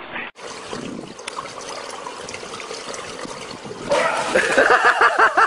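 Swimming-pool water splashing and running as a steady wash of noise, then loud excited voices from about four seconds in.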